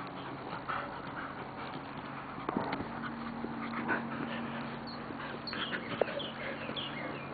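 A Belgian Malinois mouthing and worrying an object on dirt ground: scuffling and small knocks, with brief dog sounds.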